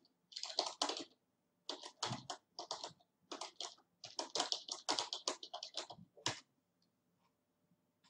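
Typing on a computer keyboard: runs of quick keystrokes that stop about six seconds in.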